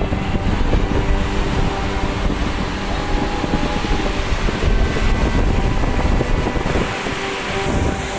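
Sea surf breaking and washing over the shallows, with wind buffeting the microphone.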